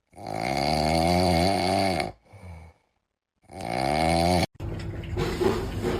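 An animal snoring in long, wavering, pitched snores about three and a half seconds apart, each followed by a short, weaker breath. It cuts off suddenly about four and a half seconds in, giving way to a different, noisier sound.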